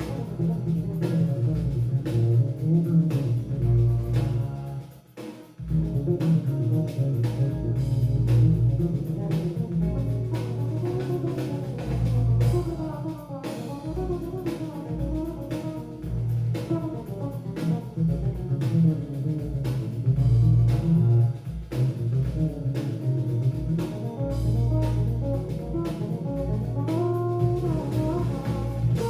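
Jazz-fusion band playing an instrumental with electric bass, guitar and drum kit, and a steady groove. The band stops briefly about five seconds in, then comes back in.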